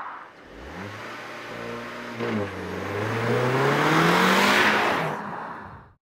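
Audi car engine firing up and settling to an idle, with a short blip about two seconds in, then revving up with a steadily rising pitch before fading out and cutting off just before the end.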